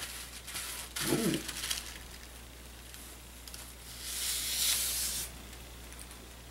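Paper rustling as the tissue wrapping and contents of a gift bag are handled, loudest for about a second around four to five seconds in.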